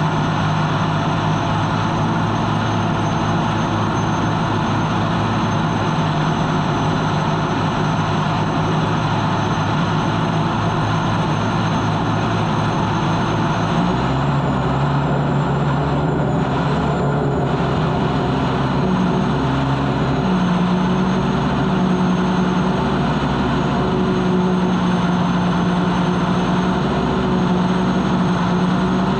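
Turbine engine of an unlimited hydroplane running at racing speed, heard onboard: a steady, loud drone with a thin high whine on top. Its low tone shifts about halfway through.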